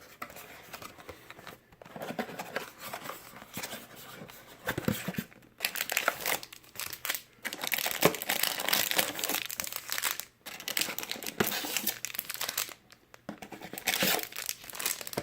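Plastic wrapping and cardboard packaging of a box of trading cards crinkling and tearing as it is opened and the card packs are pulled out, in irregular stretches with short pauses.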